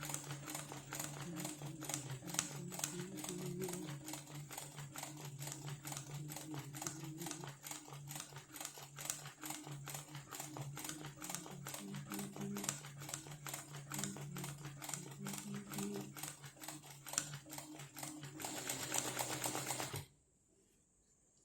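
Sewing machine doing free-motion embroidery: a fast, even ticking of stitches over a low motor hum. It stops about 20 seconds in.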